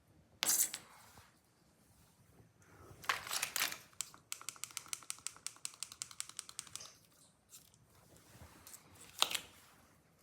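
Hard plastic parts being handled and worked at: a sharp clatter, another a few seconds later, then a quick run of even clicks, about ten a second for two and a half seconds, and one more snap near the end.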